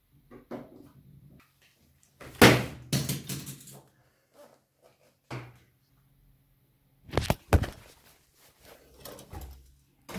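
A series of handling knocks and thumps on a desk, with no steady sound between them. The loudest cluster comes about two and a half seconds in, a single knock follows near five seconds, and a couple of sharp knocks come a little after seven seconds.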